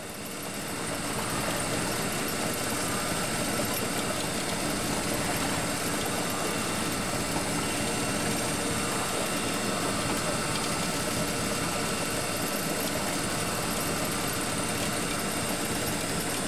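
Powered deep-drop fishing reel running steadily as its spool winds in line, a constant machine drone with a faint thin high whine. It comes up over the first second or so, then holds level.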